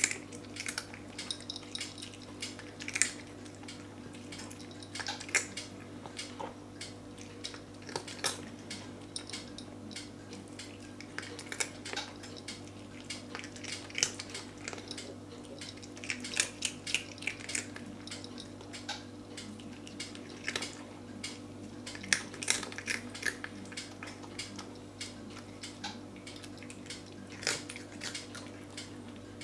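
A cat eating crunchy treats: irregular, scattered crunches and small clicks, some against a dish, going on throughout with brief pauses. A steady low hum lies underneath.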